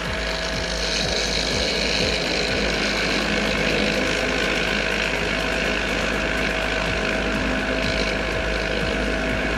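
Vibratory tumbler running steadily after being switched on, its motor humming under the steady hiss of crushed walnut shell media churning a load of brass tokens polished with Brasso.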